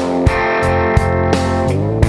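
Background music: electric guitar playing held notes over a steady drum beat.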